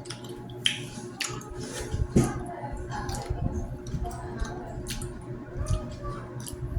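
A person eating street-food tempura with sauce: wet, squishy chewing with many short, irregular mouth clicks and smacks.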